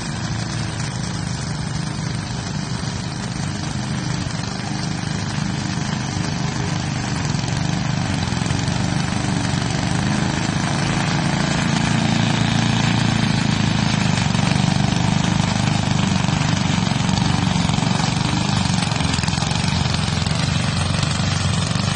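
An engine running steadily, growing somewhat louder about a third of the way in.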